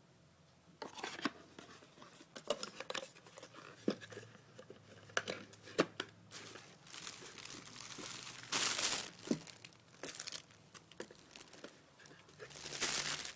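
Packaging being unwrapped by hand: crinkling and tearing of wrapping, with scattered sharp clicks and knocks and louder rustling bursts about two-thirds through and near the end.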